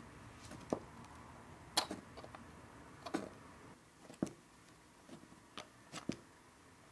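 Scattered light clicks and taps at irregular intervals as a thin 0.3 mm aluminium strip is pressed and bent with a ruler around the edge of a balsa-wood form.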